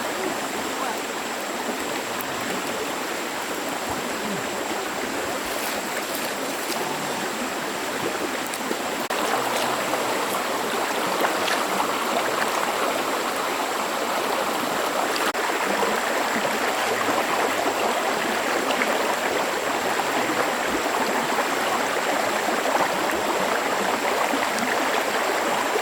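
Stream water running steadily, a continuous rushing that grows a little louder about nine seconds in.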